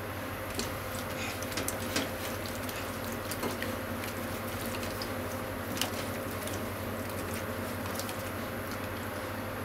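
Deep-fried tofu and chopped leeks sizzling steadily in a frying pan while being stirred with cooking chopsticks, with scattered sharp clicks of the chopsticks against the pan.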